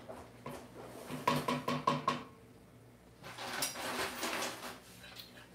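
Kitchen clatter of a pot and utensils: a quick run of about five short ringing taps about a second in, then a stretch of scraping and clinking.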